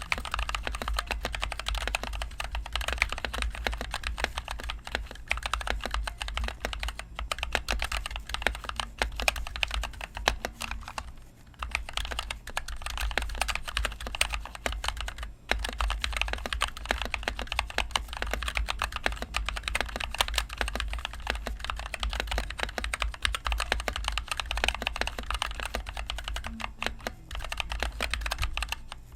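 Continuous fast typing on an NK65 Entry Edition mechanical keyboard with linear NovelKeys Cream switches and HyperX Pudding keycaps, keystrokes clacking in quick succession, with two brief pauses a little before and after the middle.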